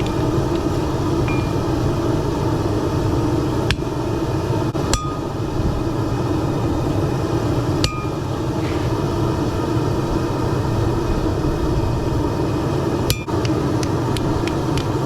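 A forge runs with a steady rushing noise, and a few sharp hammer strikes on steel ring briefly. The strikes are scattered at first and come closer together near the end.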